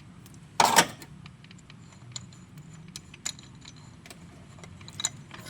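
Handling an angle grinder to take its grinding disc off: a brief rasping scrape about two-thirds of a second in, then scattered light metallic clicks and taps.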